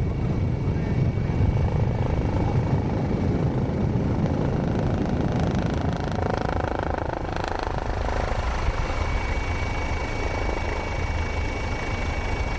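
Aircraft engine, most like a helicopter, running loud and steady with the most energy at the low end; a faint steady high whine runs through the second half.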